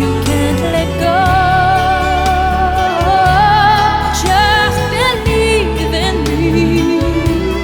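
Pop ballad music: a sustained melody line held with vibrato over a steady bass, with no sung words.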